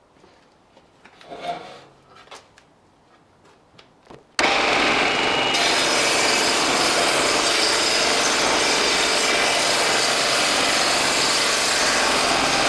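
Rockwell 9-inch table saw ripping a log lengthwise, its blade about 2.5 inches deep in the wood; the loud, steady cutting noise starts abruptly about four seconds in, after a few faint handling sounds.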